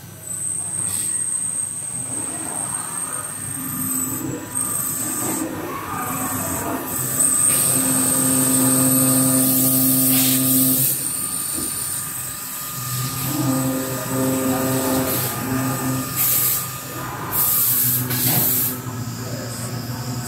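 CNC lathe turning metal cable gland parts: the spindle and drive motors whine at steady pitches that stop, start and change every few seconds as the machine moves between operations, with hissing bursts of coolant spray and cutting noise.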